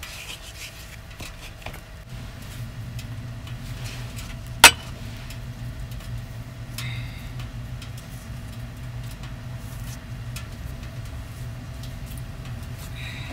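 Bread dough being kneaded by hand in a wooden bowl and on a wooden cutting board, with faint ticks and one sharp, loud knock a little under five seconds in. A steady low hum runs underneath from about two seconds in.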